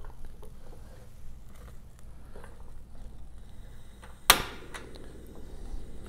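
Silicone spatula slowly stirring a thickening cream sauce in a skillet: faint stirring over a low steady hum, with one sharp knock about four seconds in, the loudest sound.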